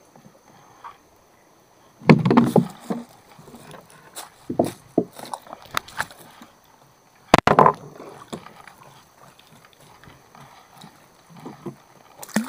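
Knocks and thumps against a small boat, with water sloshing, as gill nets are worked. The loudest thumps come about two seconds in and again about seven seconds in, with a run of smaller clicks between them, over a faint steady high tone.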